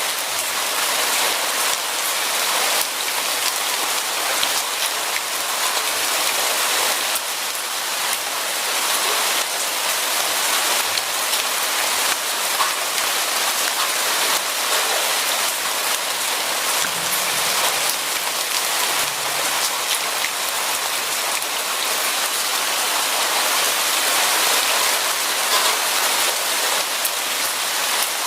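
Steady rain falling and pattering on a surface, an even hiss of many drops.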